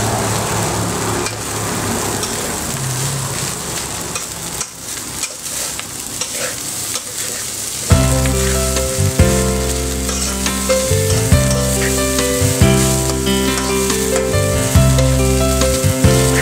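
Rice sizzling in a wok as a metal spatula stirs and tosses it, with sharp scrapes and knocks of the spatula on the pan. Background music with a strong bass line comes in loudly about halfway through.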